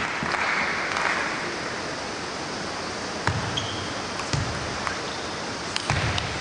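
Table tennis rally: the celluloid ball clicks sharply off bats and table several times, roughly a second apart, with low thuds of the players' footwork, over steady hall crowd noise. Applause from the crowd dies away in the first second.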